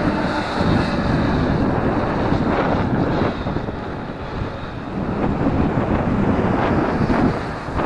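Heavy wind noise buffeting the microphone of a camera on a moving bicycle, with a low rumble underneath. The noise eases briefly about halfway through.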